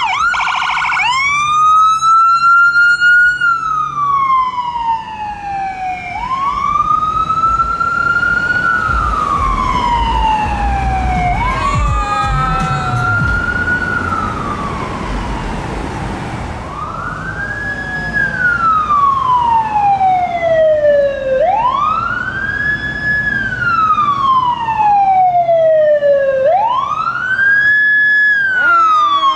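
Ambulance electronic siren, switching from a fast yelp to a slow wail about a second in. Each wail rises quickly and falls away over about four seconds, repeating roughly every five seconds. A vehicle's low engine rumble swells around the middle.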